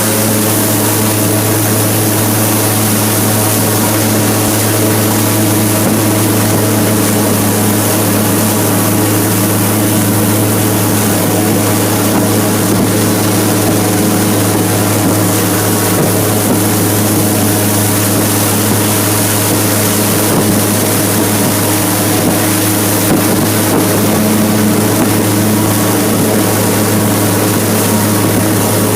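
Airboat's engine and large air propeller running steadily, a loud, even drone with a strong low hum.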